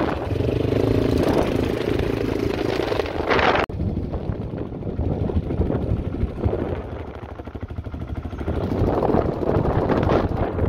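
Quad bike engine running during a sand dune ride, its steady note mixed with rough rushing noise. The sound breaks off for an instant about four seconds in, then carries on rougher and noisier.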